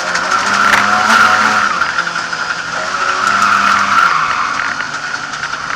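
Lada 2101 rally car driven hard, heard from inside the cabin: the engine revs rise and drop several times while the tyres squeal and skid steadily.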